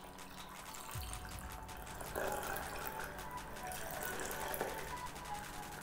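Chilled cocktail poured in a thin, steady stream from a metal cocktail shaker into a glass of ice, getting a little louder about two seconds in.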